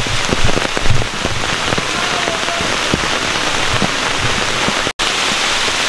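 Rain falling steadily, a dense hiss full of sharp close drop hits, with a few low thumps in the first second. The sound cuts out for an instant about five seconds in.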